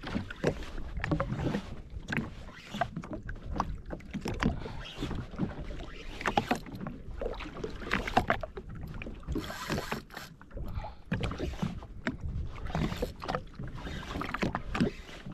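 Small waves slapping and splashing against the hull of a drifting jet ski, with irregular knocks and wind rumbling on the microphone.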